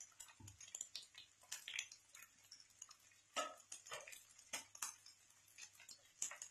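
Faint, irregular clicks and pops at an iron tawa where fish steaks in masala are cooking, about eight scattered over a few seconds.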